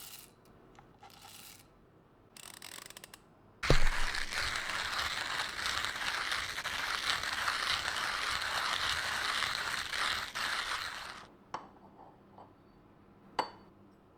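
CafeSing Grizz G1 hand coffee grinder grinding espresso beans: a steady, even grinding noise that lasts about seven seconds and starts with a sharp knock, with a few short scraping sounds before it and two light clicks after it.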